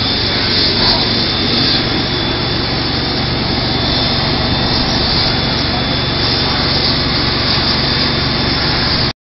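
Loud, steady rushing noise with a faint steady high whine over it, unchanging until it cuts off abruptly near the end.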